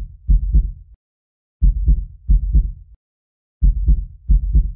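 Heartbeat sound effect: deep lub-dub thumps, two heartbeats in quick succession, repeating about every two seconds.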